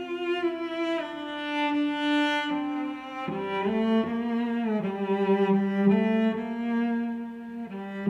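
Background music of slow bowed strings, a low cello-like line with a higher melody, the notes held and the chord changing every second or so.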